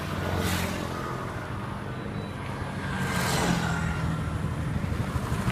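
Yamaha YZF-R3's parallel-twin engine running through its stock exhaust with a steady low note.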